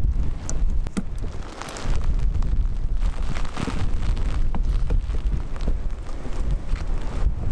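Strong wind buffeting the microphone in a steady low rumble, with scattered sharp ticks of falling hail and rain.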